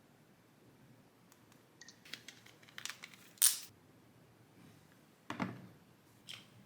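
Handling noises: a series of short clicks and scrapes, the loudest about three and a half seconds in, then a duller knock about two seconds later and a last small click.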